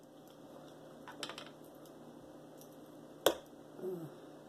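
Metal fork clicking and tapping against the plate while cutting a potato: a few light clicks about a second in and one sharp click a little over three seconds in, followed by a brief low sound falling in pitch.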